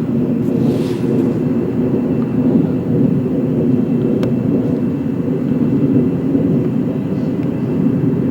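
Military jet aircraft passing overhead at a distance: a steady low rumble of jet engine noise.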